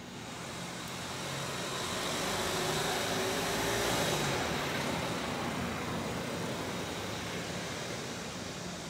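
A car driving past, its engine and tyre noise growing louder to a peak about four seconds in, then slowly fading away.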